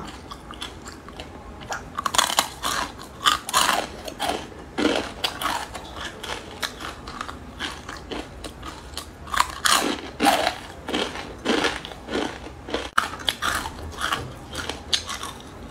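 Crisp fried instant noodle strips being bitten and chewed close to the microphone: loud, irregular crunches, some in quick clusters, with softer chewing between them.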